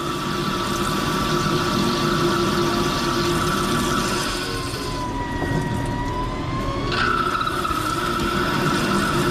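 CNC lathe turning a metal part under flood coolant: a steady machine whine over the hiss and splash of coolant and flying chips. The whine slides lower about four seconds in and jumps back up near the seven-second mark.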